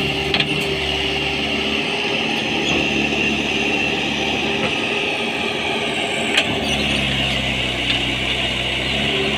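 JCB JS140 tracked excavator's diesel engine running steadily under working load, with a steady high whine over it as the arm swings and the bucket digs soil. Two short knocks, one near the start and one after about six seconds.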